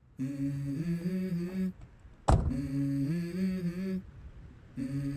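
Background music intro: a hummed vocal melody in short phrases of held notes, with one hard hit a little over two seconds in.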